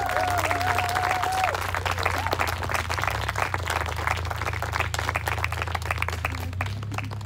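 Audience applauding, with a long whoop held over the clapping for the first second and a half; the clapping thins out near the end.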